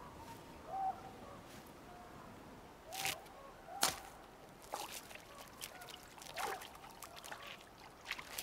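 Several short bird calls with bending pitch, scattered among sharp clicks; the loudest is a single sharp click about four seconds in.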